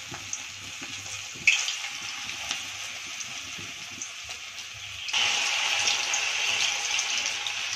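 Battered mutton-fat fritters sizzling in hot rice bran oil in a kadai. The sizzle jumps about a second and a half in and grows louder about five seconds in, as more battered pieces are dropped into the oil.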